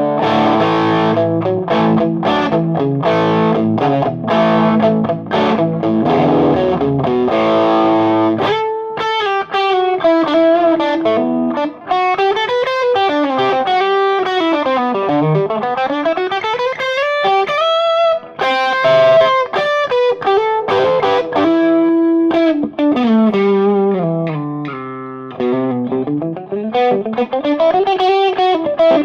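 Electric guitar played through a Frantone Hep Cat distortion pedal into a Marshall amp's clean channel: a transparent, crunchy drive. Strummed distorted chords for about the first eight seconds, then single-note lead lines that climb and fall in pitch.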